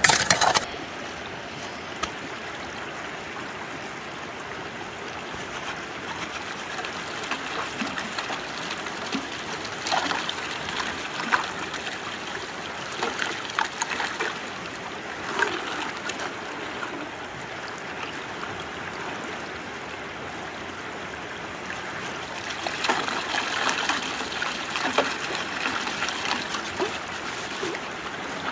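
River water rushing steadily through and around a small sluice box set in the current, with splashes now and then as gravel is poured from a bucket into the box. A brief loud burst of noise comes right at the start.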